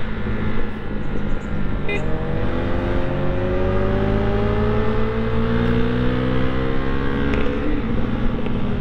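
Husqvarna Svartpilen 401's single-cylinder engine running under the rider, its note climbing slowly for several seconds as the bike gathers speed and dropping near the end.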